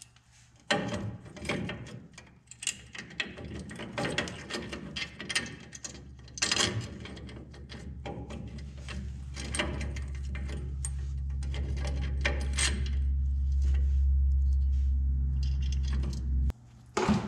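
Metal clinks of a ball joint spacer and its bolts being set into a truck's upper control arm, then light clicking of a hand ratchet tightening them. A low steady hum builds up from about halfway and cuts off suddenly near the end.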